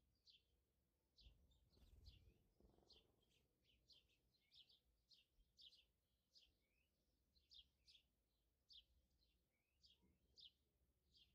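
Faint chirping of small birds: short, high, quickly falling chirps about two a second. A soft handling noise comes about two seconds in.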